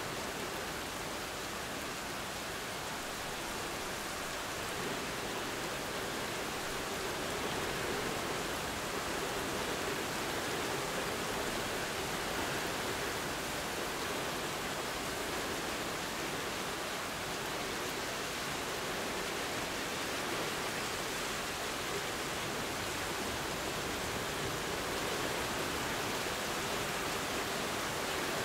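Steady rain falling, an even hiss with no single drops or thunderclaps standing out.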